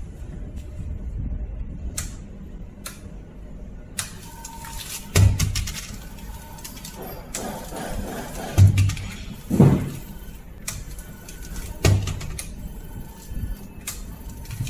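Fire extinguisher balls dropped one at a time from a drone-mounted release cage, landing on artificial turf with dull thumps, four in all, spaced a second or more apart.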